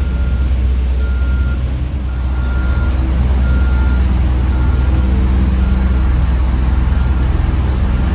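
Heavy diesel construction vehicle running with a steady low rumble while its reversing alarm beeps about once a second: the machine is backing up.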